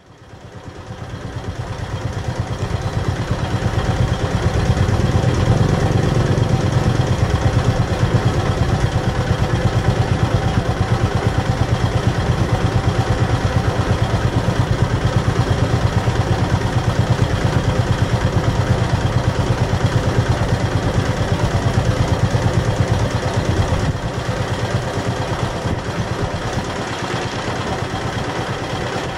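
A marine engine running steadily with an even, rapid pulse, fading in over the first few seconds.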